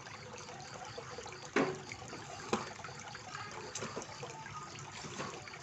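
Koi pond fountain water trickling steadily, with two sharp splashes about a second and a half in and a second later, the first the louder, as crowding koi break the surface.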